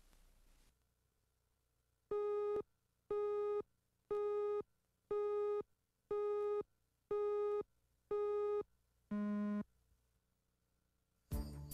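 Electronic beeps: seven identical beeps at the same pitch, about one a second, then an eighth beep at a lower pitch. Just before the end a chime and music begin.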